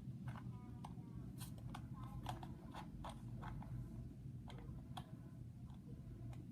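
Faint, irregular light clicks and taps, about two or three a second, over a steady low hum.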